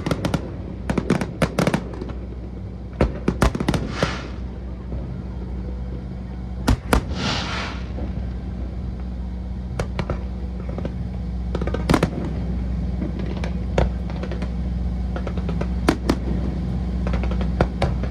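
Fireworks display: sharp aerial shell bursts at irregular intervals, several close together near the start and around three to four seconds in, a crackling hiss lasting about a second around seven seconds in, then single bangs every couple of seconds.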